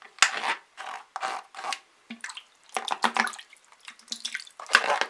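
Fingers rubbing soaked paper label off a wet clear plastic battery box: a run of short, irregular wet rubbing strokes.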